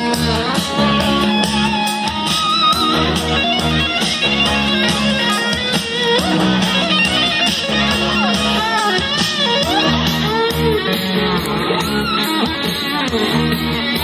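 Recorded music with guitars and a steady beat, played loud over speakers.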